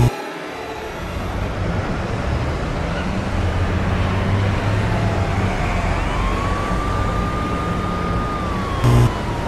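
A siren wailing slowly, falling, rising and falling again, over a traffic rumble that grows louder. Short, very loud, low-pitched blasts come right at the start and again near the end.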